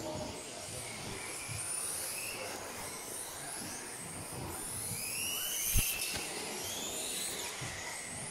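Several electric off-road RC buggies racing, their motors making overlapping high whines that rise and fall as they accelerate and brake. There is a sharp knock a little before the six-second mark, like a buggy landing or hitting something.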